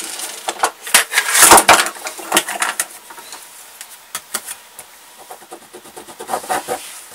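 Handling noises of a clear plastic set square being picked up and laid on a fabric piece: taps and rustles, loudest a second or two in. Then lighter scratching and ticks as a pencil is drawn along its edge to mark a zipper slot.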